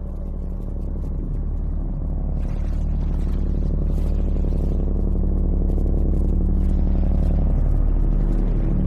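A deep, steady droning rumble that holds the same low pitches while slowly swelling louder.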